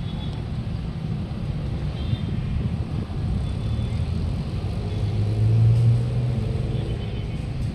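Road traffic: a steady low rumble of passing vehicles, with one engine hum growing louder about five seconds in and fading again.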